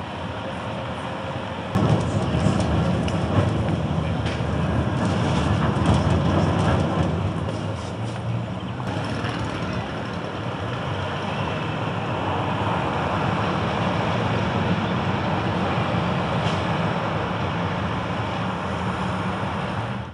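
Rumbling rail and street traffic noise, like a passing tram or train. It is dense and steady, and steps up in loudness about two seconds in.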